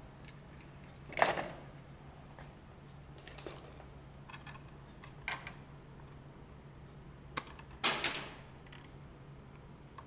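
Scattered sharp clicks and snaps of pliers working copper electrical wire, the loudest about a second in and a close pair near the end, over a faint steady low hum.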